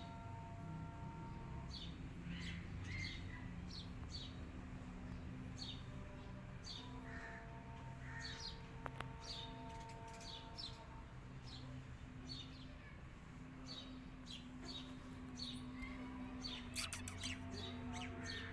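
Small birds chirping over and over, short high chirps about one or two a second, with a faint low hum underneath.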